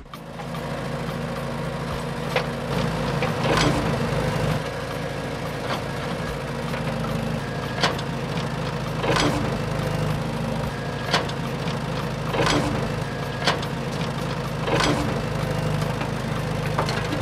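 Small electric motors of a toy excavator running steadily with a hum, and a sharp click every second or so as it works the sand.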